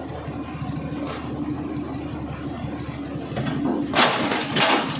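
Heavy diesel engine of an excavator running steadily while the machine is loaded onto a lowbed truck, with two short loud noises about half a second apart near the end.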